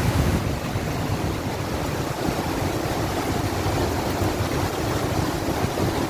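Heavy rain in strong wind: a steady rushing noise with a deep, rumbling low end.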